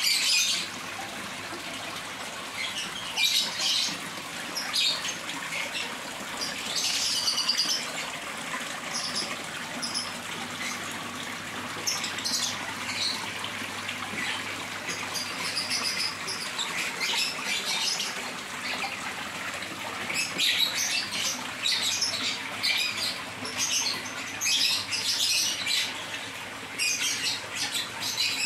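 Steady splash of a small waterfall pouring into a fish pond, aerating the water, with birds chirping in short high calls on and off over it.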